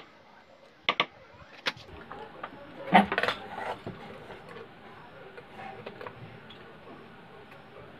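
Sharp metallic clicks and knocks of a replacement STR regulator IC on its metal heat sink being handled and fitted into a CRT TV power-supply circuit board: a double click about a second in, another about two seconds in, a louder cluster of knocks around three seconds, then faint light taps.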